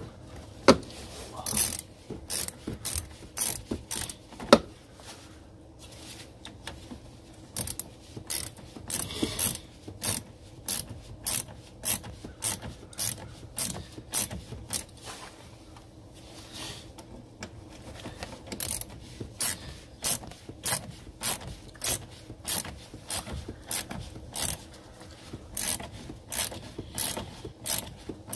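Socket ratchet clicking in short repeated strokes, roughly one run of clicks a second, as it loosens the clamp nut on a car battery terminal.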